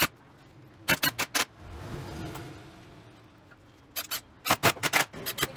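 Drill driving a screw into a pine block: a short motor whirr about two seconds in, between bunches of sharp clicks and knocks from the tool and the wood.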